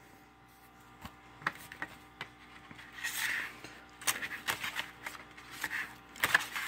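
Plastic DVD case being handled: scattered light clicks and taps, with a brief rubbing sound about three seconds in.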